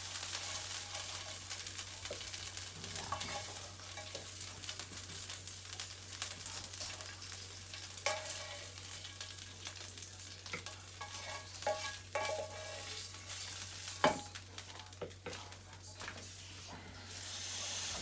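Food sizzling in a frying pan, the hiss thinning out in the second half, while a spatula scrapes and clinks against the pan several times as the food is stirred and lifted out.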